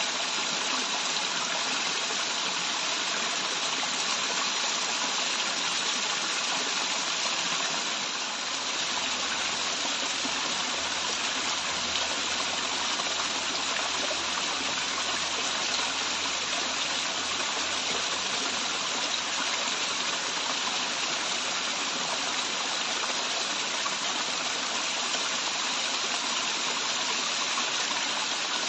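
Waterfall running, a steady rush of falling water that barely changes.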